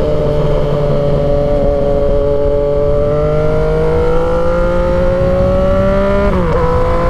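2016 Yamaha XSR900's 847 cc inline-three engine, breathing through an aftermarket Mavericks muffler, running steady and then pulling with a slowly rising pitch. About six seconds in the pitch dips sharply for a moment, as at an upshift, then climbs again.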